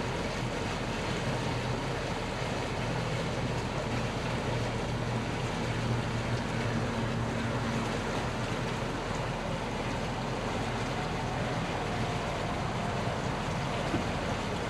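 Motorboat engine running steadily under way, a low even hum, with water and wind noise rushing past.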